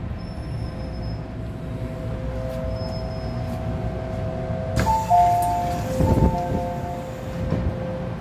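MTR M-Train car giving a steady high whine as it comes to a stop. About five seconds in there is a sudden hiss-like clatter as the doors open, then a two-note electronic chime sounds twice.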